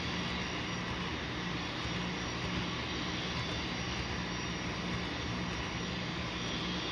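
Model Union Pacific gas-turbine locomotive's engine sound running steadily as it pulls a string of model refrigerator cars along the track.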